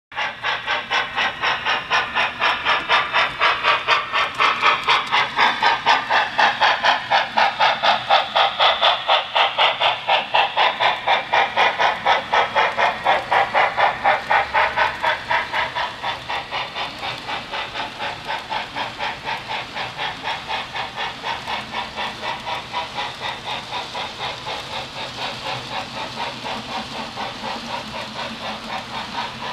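Model PRR T1 4-4-4-4 steam locomotive's TCS WOW101 sound decoder playing a steady, rapid beat of steam chuffs with hiss, a little over three a second, during a test run of the newly installed decoder. The chuffing grows somewhat quieter about halfway through.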